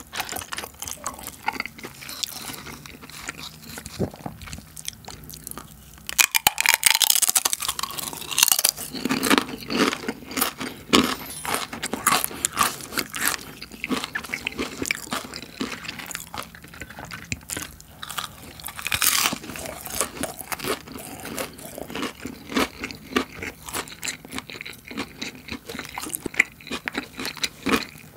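Nacho tortilla chips being bitten and chewed: loud crisp crunching starts about six seconds in and goes on as rapid crackling chewing.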